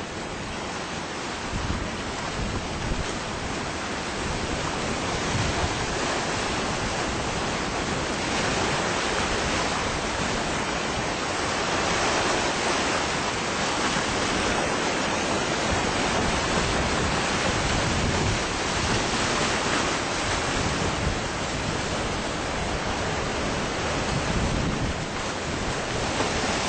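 Big waves breaking and washing over rocks in a rough sea, a continuous rushing surf that swells and eases, with strong wind buffeting the microphone.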